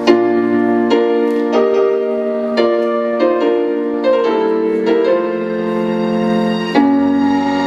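Slow piano music: single notes and chords struck about once a second, each ringing on until the next.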